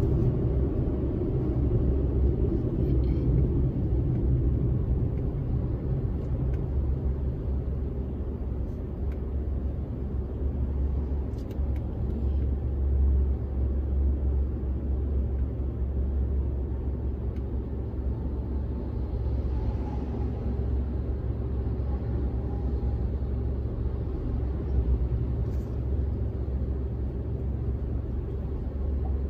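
Steady low rumble of a car being driven, heard from inside the cabin: tyre and engine noise at road speed.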